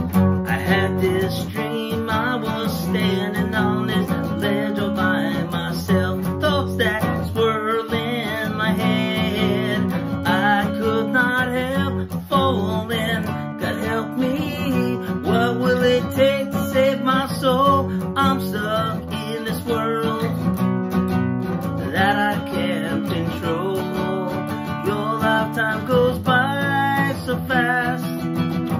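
A man singing to his own acoustic guitar, strumming chords under a wavering sung melody.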